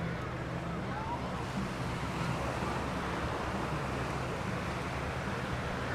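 Steady outdoor background noise: a low, even hum under a constant wash of noise, with faint distant voices.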